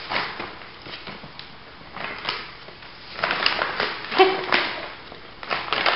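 Reusable woven grocery bag rustling and crinkling in irregular bursts as a ferret scrambles inside it and the bag is handled.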